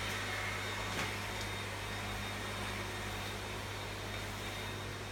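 Dibea C17 cordless stick vacuum cleaner running steadily: an even motor hum with a faint high whine. A light click about a second in.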